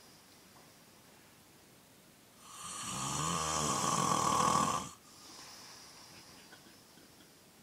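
A man snoring: one long, loud snore that starts about two and a half seconds in, swells for about two seconds and stops abruptly.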